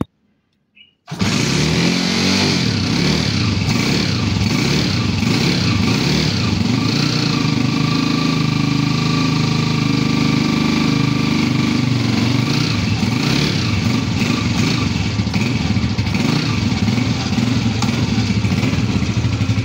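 A Honda motorcycle's single-cylinder engine running steadily while it warms up. It comes in abruptly about a second in, after a brief silence.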